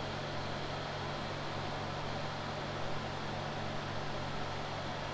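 Steady low hum with an even hiss under it: room background noise such as a running fan or appliance, unchanging throughout.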